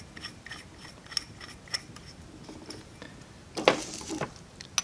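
Small hand ratchet clicking steadily, about three clicks a second, as the 10 mm needle jet holder of a Bing 64 carburetor is run in. A brief louder clatter of handling comes a little past halfway.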